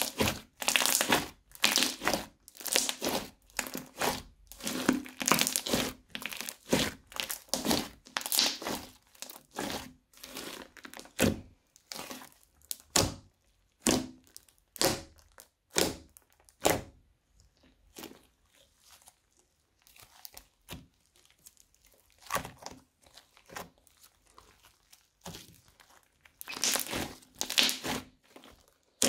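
Crunchy slime being squished and pressed by hand, giving irregular runs of crackling, crinkly squishes. They come thick and fast for the first third, thin out to scattered single crackles in the middle, and pick up again near the end.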